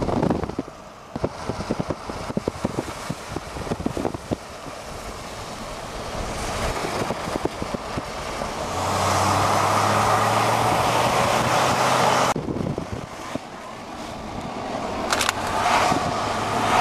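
Motor vehicle on the move: engine and road noise that builds to a loud steady hum, with a run of clicks and knocks in the first few seconds. It cuts off suddenly about twelve seconds in, then builds again.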